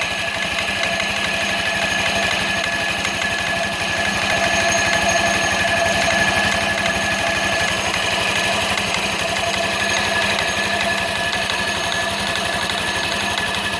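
Engine running steadily with a rapid metallic knocking from the CVT variator, a sign of a fault in the variator.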